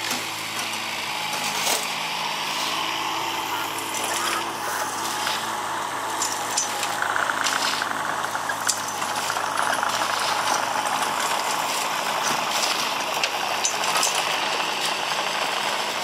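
A mini excavator's engine running steadily. From a few seconds in, a shovel scrapes into a gravel pile and stones clatter in irregular bursts.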